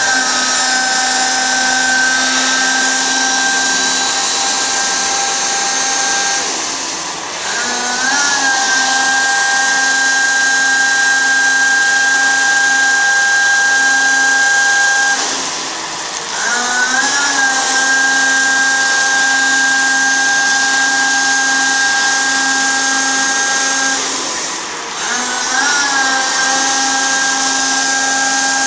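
Water truck's spray pump whining at a steady pitch over the hiss of water jetting from the rear spray heads. Three times, about every eight seconds, the whine sags and then climbs back to pitch with a short rising glide as the spray switches to another head.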